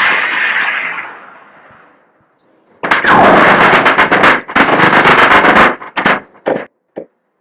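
Machine-gun fire imitated with the mouth. A loud rushing noise dies away over the first two seconds. About three seconds in, a rapid burst of gunfire starts, then breaks up into a few separate shots near the end.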